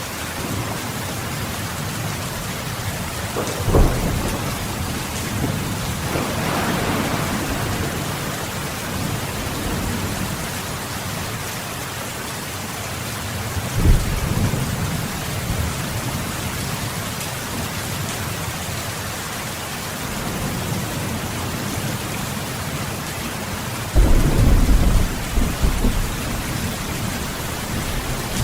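Steady rain falling, with short thunder cracks about four and fourteen seconds in. Near the end a long, deep thunder rumble sets in and is the loudest sound.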